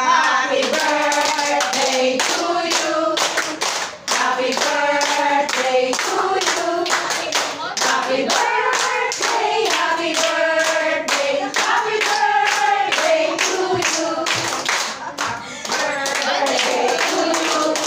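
A group of women singing a birthday song together, clapping along to a steady beat.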